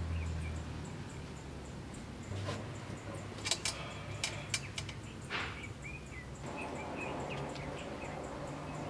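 Outdoor summer ambience of insects chirping in a steady high chorus, with a few short bird chirps. Several sharp clicks come in the middle.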